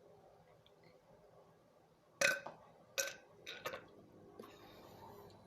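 A person burping: after about two seconds of quiet, two short, loud burps a second apart, followed by two smaller ones.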